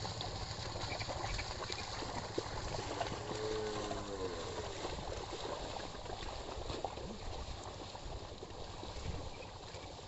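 Sloshing and splashing of a pair of bullocks' hooves and a wooden plough wading through a flooded, muddy paddy field. A brief pitched call sounds about three and a half seconds in.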